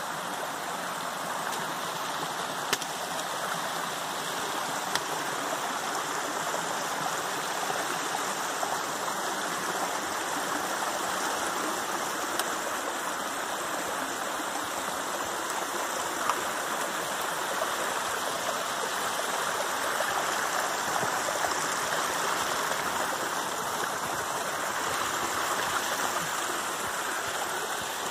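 Small rocky forest stream rushing steadily over stones and little cascades, with a few light clicks.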